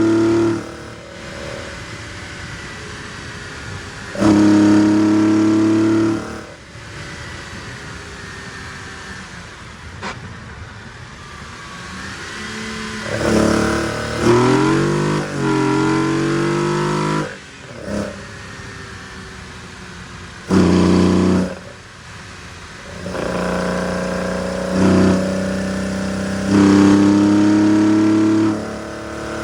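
BMW M20B20 2.0-litre inline-six breathing through twin Weber DCOE 40 carburettors, idling and blipped up in about five short, held revs, with a longer wavering run of revs midway. The engine is running rich on carburettors not yet set up.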